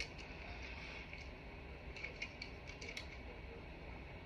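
Faint, scattered small clicks and ticks from a diecast toy car being handled and turned in the fingers, over a low steady room hum.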